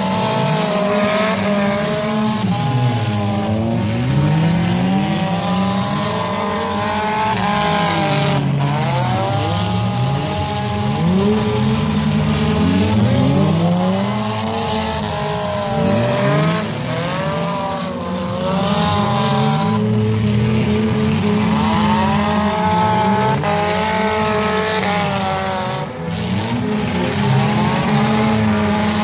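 Engines of several figure-8 race cars revving up and down at once, their pitches rising and falling and overlapping as the cars accelerate and slow.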